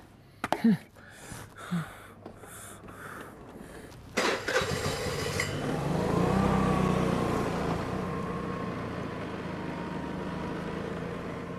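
Motor scooter engine coming in suddenly about four seconds in, rising in pitch as the scooter pulls away, then running steadily.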